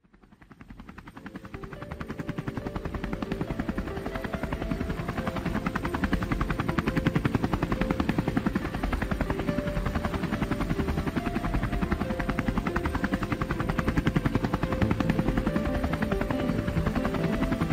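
Small camera drone's motors and propellers spinning up from silence and lifting off, building over the first few seconds into a steady buzzing whine whose pitch shifts in small steps as it climbs.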